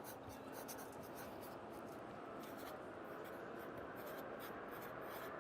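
Pencil writing on paper: short, irregular scratching strokes, several a second, over a steady low hum of city traffic heard from inside an apartment.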